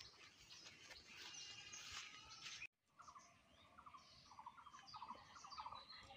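Faint outdoor birdsong with scattered chirps. The sound drops out briefly a little under halfway through, then a bird repeats short trilled phrases several times.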